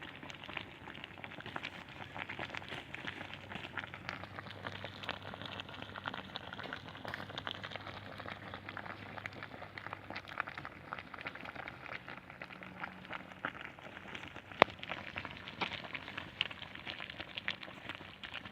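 Wood fire crackling in a Bushbox XL twig stove: many small crackles and snaps throughout, with one sharp, louder pop about three-quarters of the way through.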